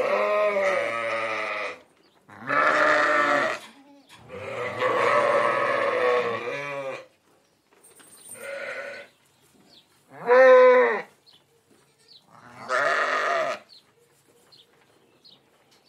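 Sheep bleating: six separate bleats with a quavering pitch and short pauses between them. The third bleat is the longest and the fifth the loudest.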